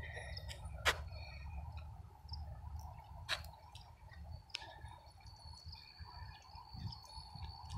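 Crickets trilling steadily at a high pitch over a low, steady rumble, with three sharp clicks about one, three and four and a half seconds in.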